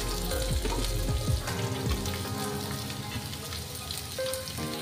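Hot oil in a kadhai sizzling and crackling as chopped onion goes into it with garlic, green chilli and ginger. The sizzle eases off slightly as the onion settles in the oil.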